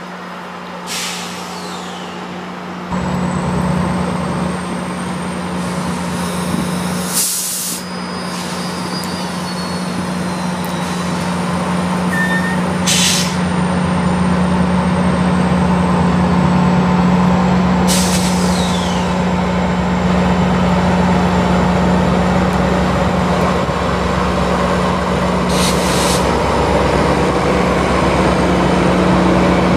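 GO Transit commuter train rolling past with its two diesel locomotives running, a steady low engine drone that jumps up about three seconds in and grows louder as the locomotives approach. Several short sharp bursts of air hiss from the train's brakes cut in along the way.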